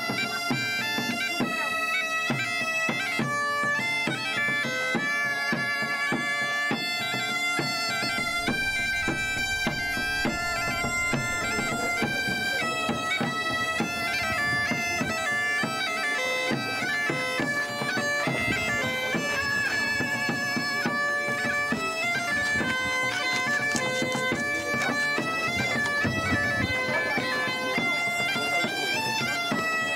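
Background music: a bagpipe melody over a steady drone.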